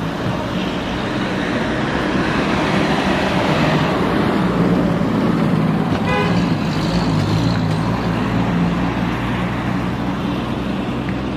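Front-engined Yangtze River city bus engine running on the move, with road noise, getting louder over the first few seconds. A short horn toot sounds about six seconds in.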